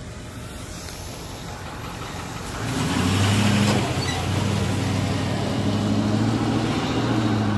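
A motor vehicle's engine running with a steady low hum that comes in about three seconds in and holds.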